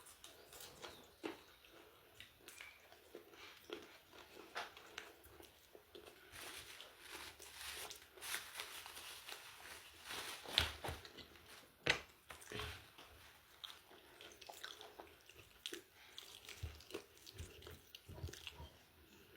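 A person chewing and biting into fried chicken chicharrón close to the microphone: irregular mouth clicks and bites, with two louder bites a little past the middle.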